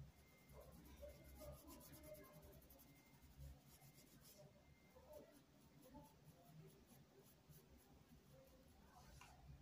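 Faint quick scratching of a paintbrush stroked back and forth across fabric, spreading a little paint in short pulled strokes. The strokes come thick and fast for the first four seconds or so, then more sparsely.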